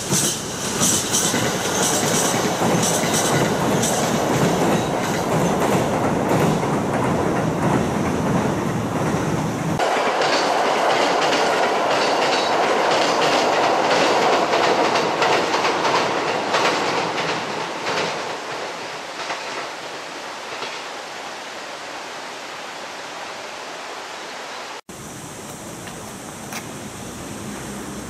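A JR East E129 series electric train passing close by, its wheels clicking and clattering over the rail joints. About ten seconds in, the sound changes to the train rolling across a steel bridge further off, a steady rumble that fades away over several seconds. Near the end it changes again to a quieter steady noise.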